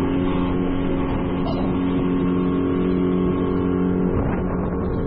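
Outboard motor running steadily at speed, driving a small aluminium tinny across the water, with a constant engine hum over the rush of wake and wind.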